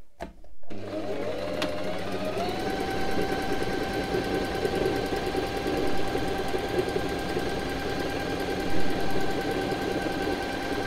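Silvercrest (Lidl) electric sewing machine sewing a straight stitch through folded fabric. It starts about half a second in, speeds up over the next two seconds, then runs at a steady speed with rapid, even needle strokes; it is nice and quiet.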